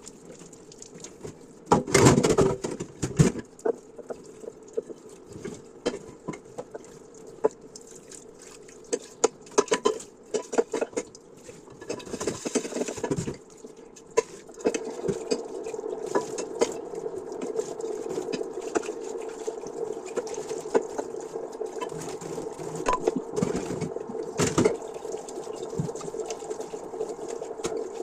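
Dishes being washed by hand in a sink: plates and utensils clinking and knocking, with a tap running into the sink from about halfway through.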